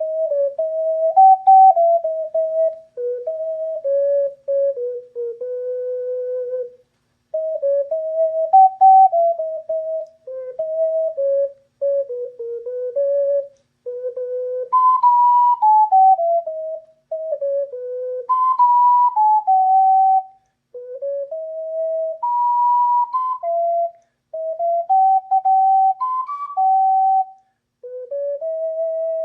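An ocarina plays a slow melody one note at a time, with a clear, almost pure tone. The tune comes in short phrases of a few seconds, broken by brief pauses for breath.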